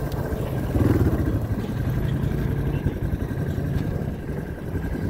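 ATV engine running under load as it tows a broken-down side-by-side on a tow strap, a fast low pulsing, swelling about a second in and then running evenly.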